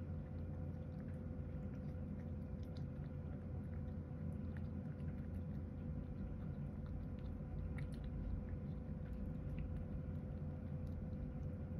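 Domestic cat eating from a ceramic bowl: faint, irregular small clicks of chewing and licking, over a steady low hum.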